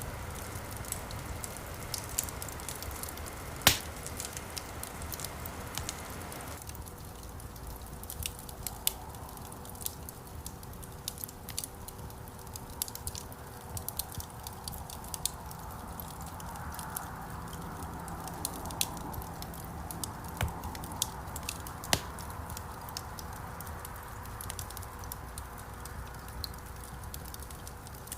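Wood campfire crackling, with frequent small snaps and pops over a soft hiss of burning. A single louder, sharp pop comes about four seconds in.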